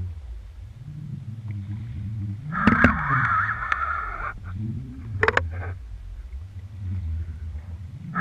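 Muffled underwater sound picked up by a GoPro in its waterproof housing on a deep-water halibut rig: a steady low rumble, with two sharp knocks near the middle and a rougher, higher grinding noise lasting a couple of seconds.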